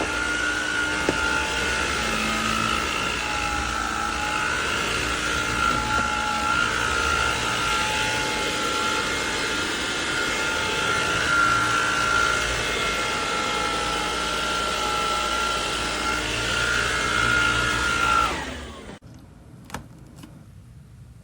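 Craftsman V20 cordless stick vacuum running with a steady high whine over its airflow noise, then switched off near the end, the motor dying away within about a second, followed by a few light clicks.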